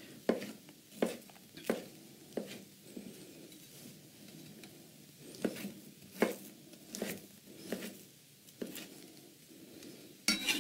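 Chef's knife chopping dates on a cutting board: uneven knocks of the blade on the board, roughly one a second, with a quick cluster of knocks near the end.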